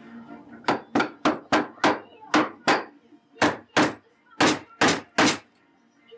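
Claw hammer striking a wooden frame's corner joint: about a dozen sharp knocks in quick runs of two to five, stopping about five seconds in.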